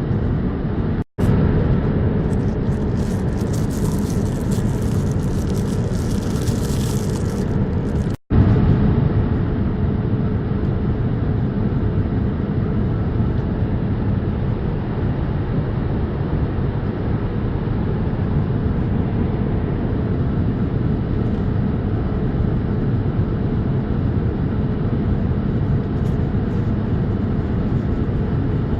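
Steady cabin noise of a Boeing 787-8 airliner: an even rush of engine and airflow noise with a faint steady hum. It cuts out briefly twice in the first eight seconds.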